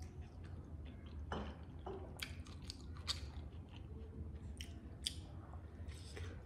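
Close-up chewing and wet mouth sounds of someone eating momos (steamed dumplings): scattered soft smacks and clicks, over a faint steady low hum.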